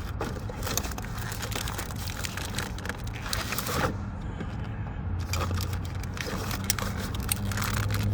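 Wiring harness and plastic connector being pushed aside by hand in an engine bay: an irregular run of crackles and clicks over a low steady hum.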